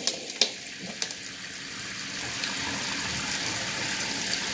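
Kitchen faucet's spray head running steadily onto a block of ice in a glass bowl of water, getting a little louder about two seconds in. A few light clicks in the first second.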